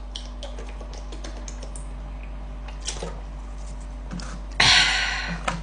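A person drinking from a plastic water bottle: a run of small clicks and crackles, then a loud, short rush of noise about four and a half seconds in.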